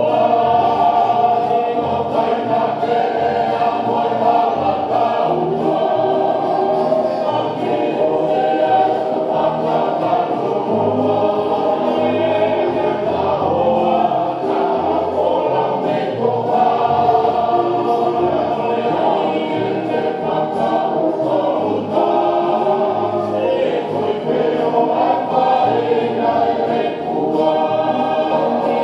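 Group of voices singing a Tongan tau'olunga dance song in chorus, with string-band accompaniment including a violin.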